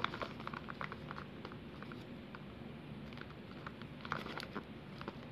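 Faint scattered clicks and light scrapes of fingers handling and turning two small cardboard boxes, with a slightly louder cluster of taps about four seconds in.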